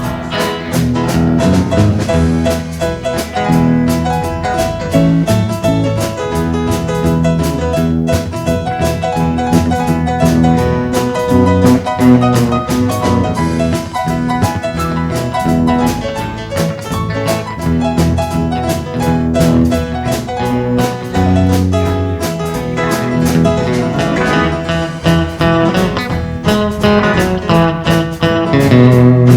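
Band playing an instrumental break of a country song with a steady beat, guitar and keyboard carrying the melody.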